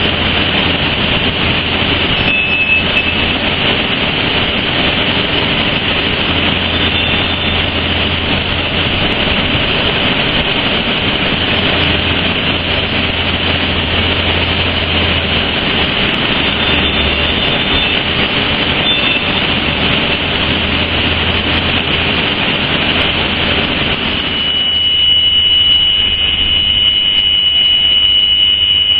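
Loud, steady hiss of steam pouring off glowing hot material as it is quenched. About 25 seconds in, the hiss drops away and a high, steady squeal takes over.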